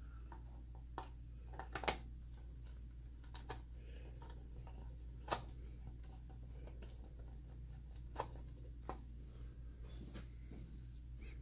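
Scattered small clicks and taps of a screwdriver working screws into a projector's plastic housing, with parts being handled. The loudest click is about two seconds in. A low steady hum runs underneath.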